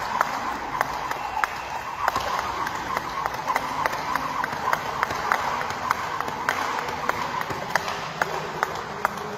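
Skipping rope slapping the gym floor as he jumps, in a steady rhythm of about three beats a second.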